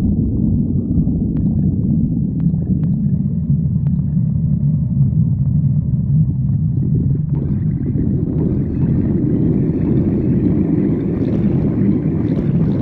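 Human stomach growling: a continuous low rumble, with a higher, harsher layer joining it about seven seconds in.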